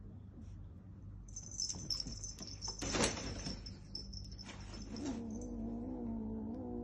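High jingling with clicks and a loud knock about three seconds in, then a cat's long, drawn-out meow with a wavering pitch near the end.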